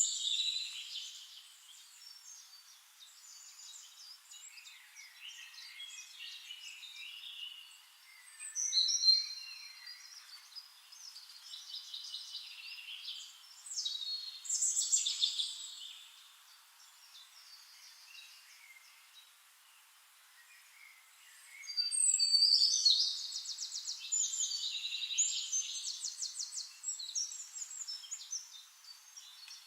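Songbirds singing in bursts of quick chirps and trills. The songs are loudest about nine seconds in, again around fifteen seconds, and in a longer run of rapid trilling from about twenty-two seconds on, with quieter chirping in between.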